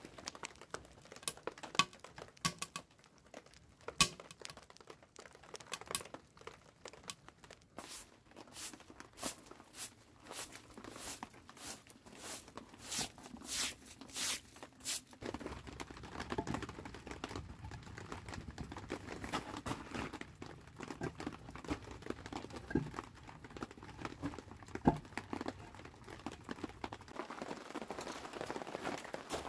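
Wood fire crackling in a small steel wood stove with sparse, sharp pops. About a quarter of the way in, a push broom sweeps bare concrete in quick, repeated scratchy strokes. These give way about halfway to a steadier rustling haze with scattered knocks.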